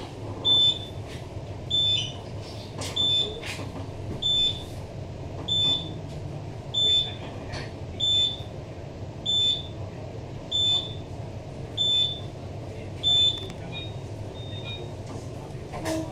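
A single high electronic beep repeating about every 1.25 seconds, eleven times or so, fading out near the end, over the steady low hum of a stationary Queensland Rail NGR electric multiple unit. It is the door tone that sounds while the train's doors stand open at a station stop.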